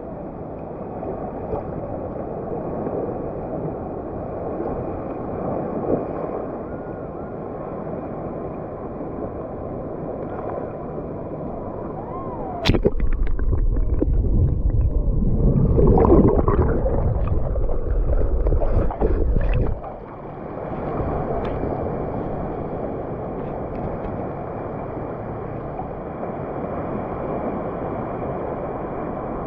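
Ocean surf washing up the beach and running back out, a steady rush of water noise. About thirteen seconds in, a loud low rumble with a few sharp knocks starts suddenly. It cuts off about seven seconds later.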